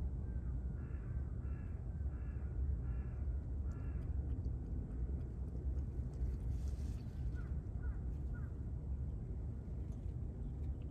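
A crow cawing about five times in quick succession over a steady low rumble, followed a few seconds later by three short rising chirps from a small bird.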